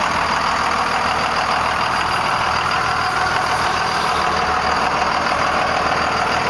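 1998 Dodge Ram 2500's Cummins inline-six turbo diesel idling steadily.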